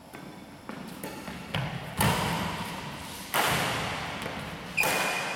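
Badminton rackets striking a shuttlecock in a rally: a couple of lighter hits, then three sharp loud strikes about a second and a half apart, each with a long echo off the walls of the hall.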